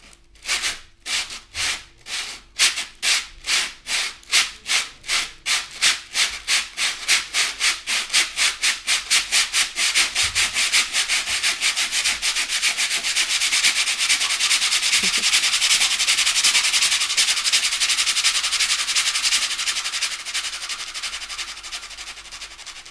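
Hand-made Foley imitation of a train starting off: rhythmic rubbing strokes, slow at first, speed up steadily until they merge into a fast continuous rush. The sound holds at speed, then fades near the end.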